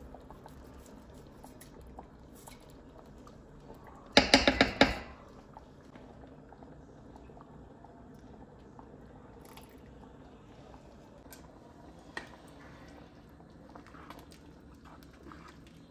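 A knife blade knocked quickly against the rim of a granite-coated cooking pot: a loud cluster of sharp knocks about four seconds in, lasting about half a second. The soup simmers softly throughout, with a few faint clicks near the end as a wooden spoon stirs it.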